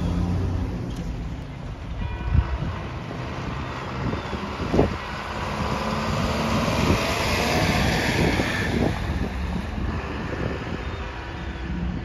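Isuzu box truck driving past on the street, its engine and tyre noise swelling and loudest about seven to nine seconds in.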